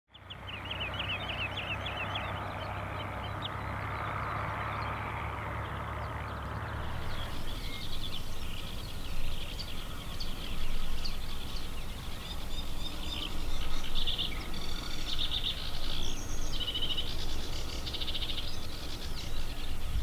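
Birds calling in an open meadow, northern lapwings among them: quick chirps over a steady low hum for the first several seconds. Then, about seven seconds in, the hum stops and sharper, high calls repeat in a busy stream, loudest in the last few seconds.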